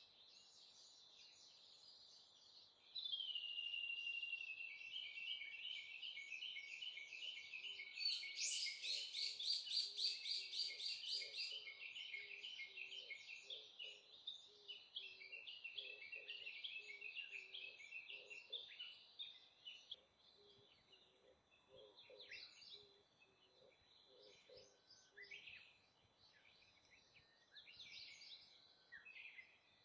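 A songbird sings a long run of rapid repeated notes, opening with a falling whistle and turning louder and faster for a few seconds in the middle before trailing off. Short scattered chirps follow.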